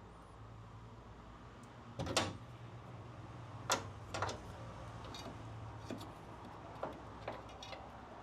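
A handful of sharp knocks and scrapes of hand tools on the rear suspension of a Porsche 912, spaced a second or more apart, as the torsion-bar spring plate is worked free against its remaining tension. A steady low hum runs underneath.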